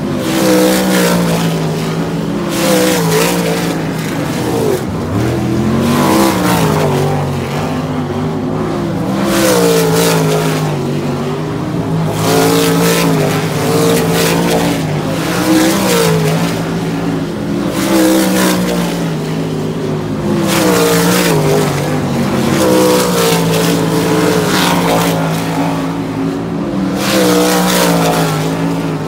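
Winged sprint cars' V8 engines running laps on a dirt track, the pitch climbing and dropping again every few seconds as they get on and off the throttle.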